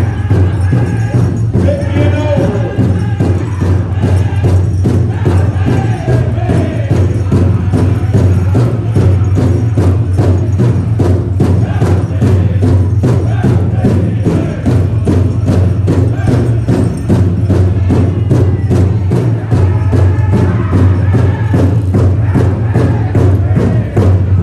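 Powwow drum group: singers striking a large drum together in a steady, even beat while chanting in unison.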